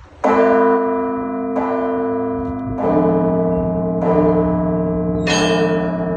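Russian Orthodox monastery bells rung by a bell-ringer: the ringing starts suddenly, then a new stroke comes about every second and a quarter over the still-sounding bells, with several bells of different pitches, lower ones joining near the middle.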